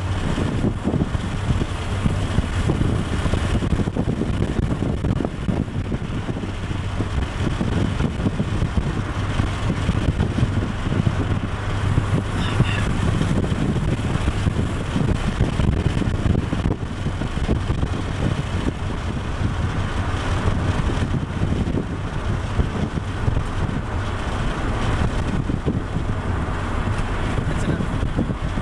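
Inside a moving Honda Civic: a steady low engine drone with road and wind noise at cruising speed.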